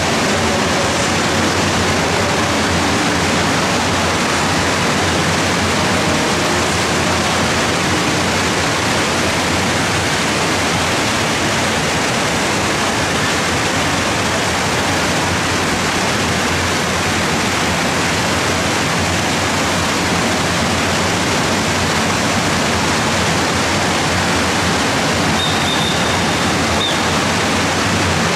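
Steady rush of water pouring from water-slide outlets into a splash pool.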